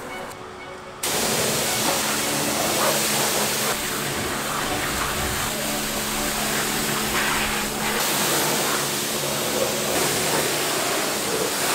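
Pressure washer spraying water onto a car's bodywork: a loud, steady hiss that starts abruptly about a second in, with a steady low hum underneath.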